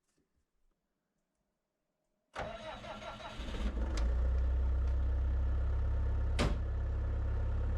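Skid steer engine cranking and catching about two seconds in, then running steadily at idle with a low, even drone, broken by a couple of sharp clacks.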